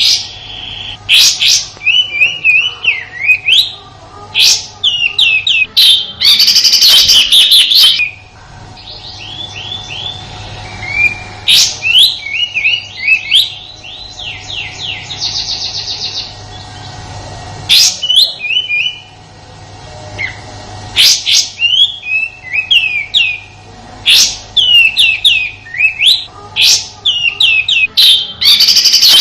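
Kapas tembak bulbul singing its rough 'tembakan' song: quick runs of sharp, high chirps broken by harsh rattling bursts, repeated with short pauses. A faint steady hum sits underneath.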